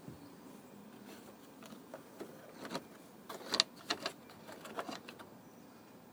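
A scattered run of small clicks and knocks, like parts or tools being handled, loudest about halfway through, over a faint low background.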